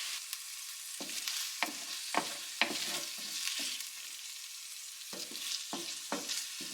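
Stir-fried chicken, shrimp and vegetables sizzling in a hot pan while a utensil scrapes and knocks against the pan, scooping the food out. The sizzle is a steady hiss, broken by irregular sharp knocks.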